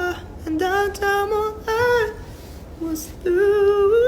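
A solo voice singing a slow melody with held, sliding notes and little or no accompaniment, in two phrases with a short breath-pause between them.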